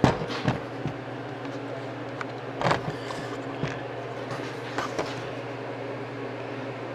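The driver's door of a GMC Squarebody pickup being worked on its repaired hinges. There is a sharp clunk at the start, then a few lighter clicks, another clunk about two and a half seconds later and a softer knock after that, over a steady low hum.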